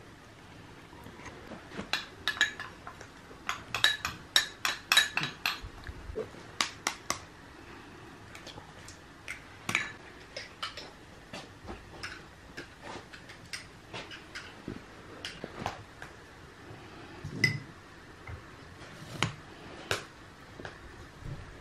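A fork and spoon clinking against bowls as ingredients are mixed. A fast run of clinks, like a fork beating in a bowl, comes a few seconds in, followed by scattered single clinks and knocks.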